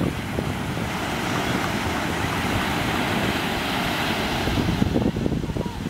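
Wind buffeting the microphone over the hiss of small sea waves breaking and washing up the sand, the wash swelling through the middle and easing near the end.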